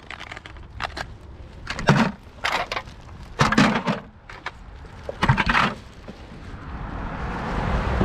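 Irregular sharp crunches and crackles as plastic litter is picked up with a grabber tool, about five in the first six seconds. Then a car approaches, its tyre noise rising, and passes close near the end.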